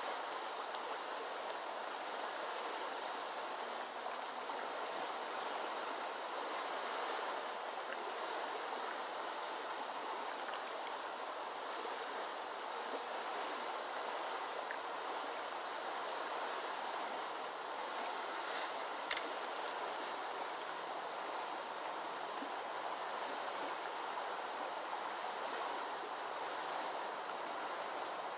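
Steady rush of a flooded creek's flowing water, with a single sharp click about two-thirds of the way through.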